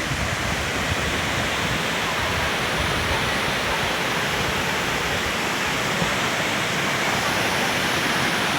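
Waterfall rushing steadily, a dense, even roar of falling water.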